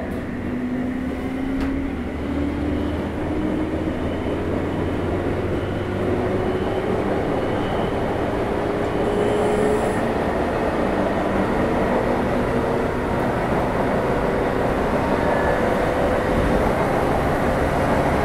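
JR 201 series electric train accelerating: the traction-motor whine rises steadily in pitch over a rumble of wheels on rail, growing gradually louder.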